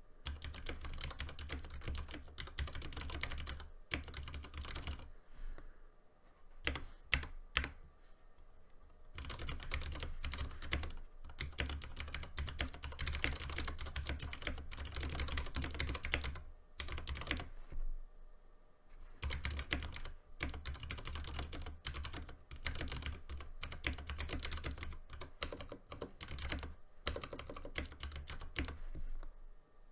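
Typing on a Ducky One 2 Mini 60% mechanical keyboard with Cherry MX Brown switches: quick runs of fairly quiet keystroke clacks with short pauses, and a stretch of slower, separate key presses near the middle.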